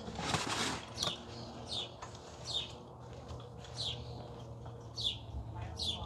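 A songbird repeating a short, high, down-slurred chirp about once a second. A brief rustling noise, the loudest sound, comes about half a second in.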